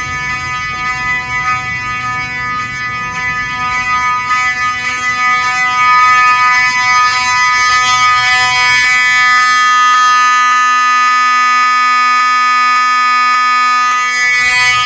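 Wheelock 7002T 12-volt fire alarm horn strobe sounding a loud, continuous buzzing horn tone that gets louder about six seconds in.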